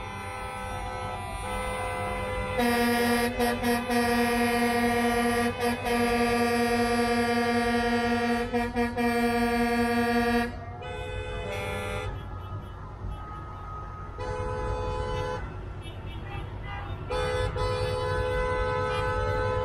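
Truck air horns honking in long held blasts. One loud horn sounds from a couple of seconds in to about ten seconds with a few brief breaks, then shorter, higher-pitched horn blasts follow near the middle and the end, over a steady low rumble of traffic.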